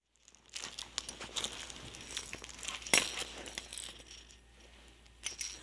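Rustling and crinkling with scattered small clicks, and one sharper click about three seconds in.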